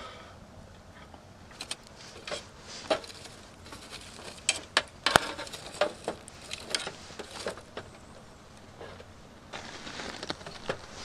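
Wood campfire crackling and popping under a grill, with scattered sharp pops and clicks, the loudest about five seconds in, as sticks are pushed into the embers.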